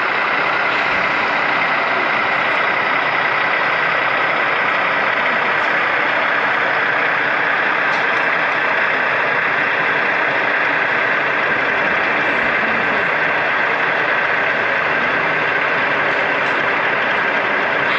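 Sound-fitted model diesel locomotives idling: a steady diesel engine sound that does not change, heard over the background noise of the exhibition hall.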